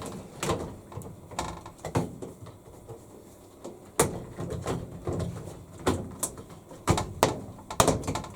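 Hard plastic clicks and knocks, about a dozen at uneven intervals, as a switch unit is pressed and snapped by its claws into the plastic top housing of a Hitachi BW-V80C top-loading washing machine. The sharpest knock comes about halfway through, with a quick run of them near the end.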